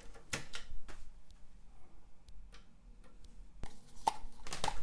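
Sharp clicks of a ball mouse being tried out, its buttons clicked and the mouse handled on the desk, scattered single clicks with a quicker run of them near the end.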